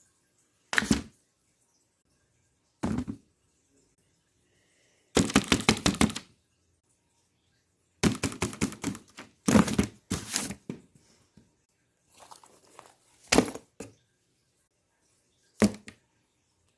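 Fidget toys being handled, giving about seven short bursts of rapid clicking and rattling with silence between. The longest bursts come about five seconds in and again around eight to ten seconds.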